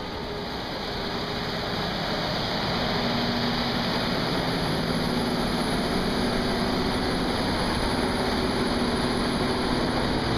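John Deere 7760 cotton picker running, a steady engine and machinery drone with a low hum in it, growing louder over the first couple of seconds and then holding steady.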